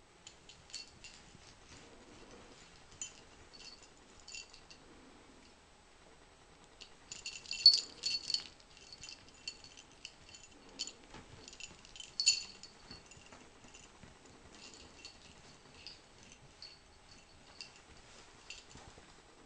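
Small bell on a ferret's harness jingling in short irregular bursts as the ferret wriggles, rolls and moves about, with soft rustling of fur against the fleece blanket between the jingles.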